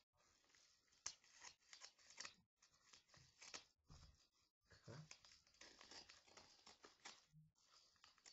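Faint scissors cutting through a paper mailing envelope: a run of short snips with paper crinkling, broken by a few brief pauses.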